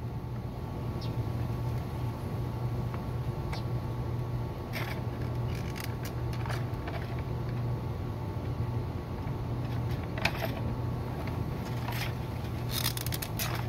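Plastic parts of a 2009 Toyota Corolla fuel pump module handled and fitted together: scattered light clicks and rattles, a quick cluster of them near the end, over a steady low hum.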